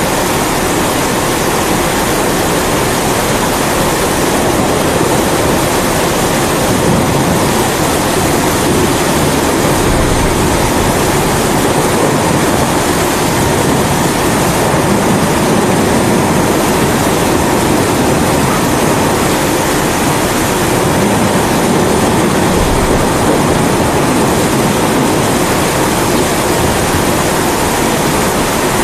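Steady roaring hiss of a kerosene pressure stove's burner (a Primus-type babour) blended with the constant hiss of heavy rain, holding an even level without distinct thunderclaps.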